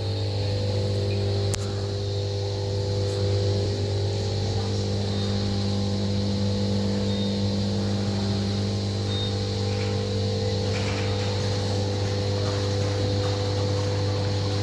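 Lely Discovery robotic manure scraper driving along a slatted barn floor, its electric drive giving a steady, even low hum.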